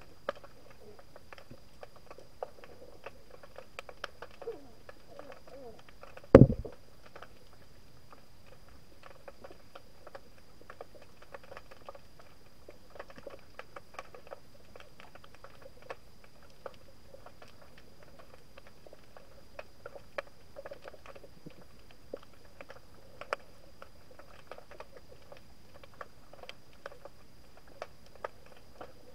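Underwater ambience picked up by a camera in its housing: a steady crackle of many small clicks, with a faint steady high tone. One loud thump comes about six seconds in.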